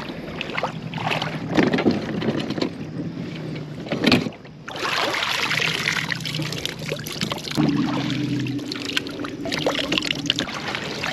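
Water sloshing and knocking around a fishing kayak, with wind on the microphone and a low hum that comes and goes.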